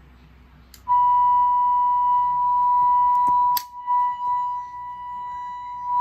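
A fire alarm panel's piezo sounder starts a steady, high-pitched beep just after a switch click, about a second in, signalling the supervisory condition that has just been activated from the annunciator's control switch. A sharp knock sounds about three and a half seconds in.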